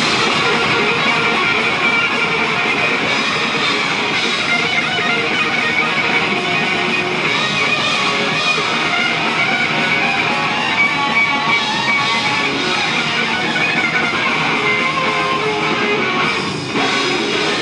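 Live rock band playing loud: electric guitars over a drum kit, with a brief drop in level about sixteen seconds in.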